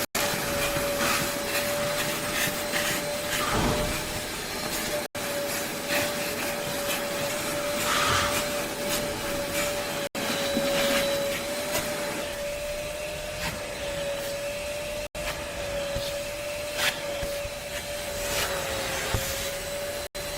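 A small motor whining steadily at one slightly wavering pitch over a rushing, airy hiss, with scattered small knocks. The sound drops out for an instant about every five seconds.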